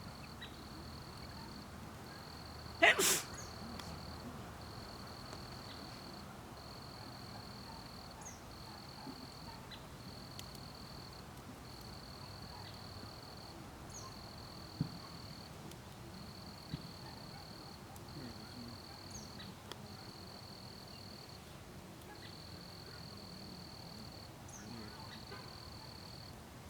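Insects trilling steadily in high stretches, each lasting a second or so with short breaks, over the faint crackle and pops of a wood campfire. A sudden loud, short burst, possibly a sneeze, comes about three seconds in.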